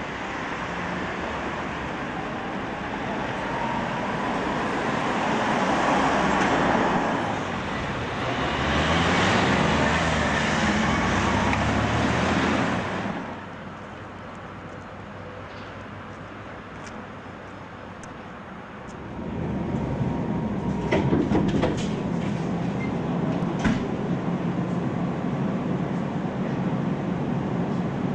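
Electric trams and street traffic. A tram runs past loudly for about the first thirteen seconds, swelling and fading, then the sound drops abruptly to a quieter hum. From about nineteen seconds it is louder again, with a few sharp clicks.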